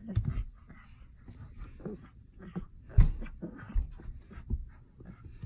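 Lion cubs making a string of short calls, with a few low thumps among them; the loudest thump comes about three seconds in.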